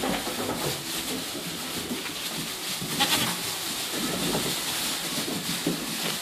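Appenzell goat kids bleating as they jump and scamper about, with the rustle and patter of their hooves in straw.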